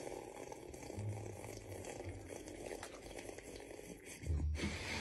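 Faint room noise with a brief low rumble about a second in and another near the end.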